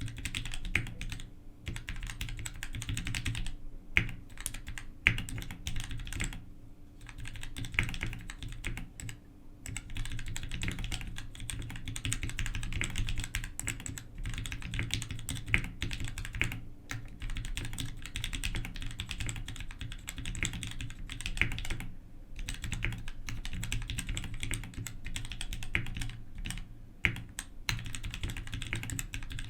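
Fast, continuous typing on a mechanical keyboard with Gateron REVO Pink switches lubed with Krytox 105 and 205, under DCS-profile keycaps: dense key clacks with a few brief pauses and occasional louder strokes.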